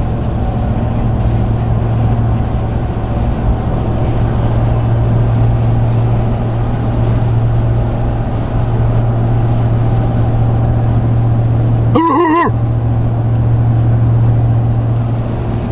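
Steady low drone of a motor vehicle driving. About twelve seconds in, the drone briefly drops away under a short warbling call.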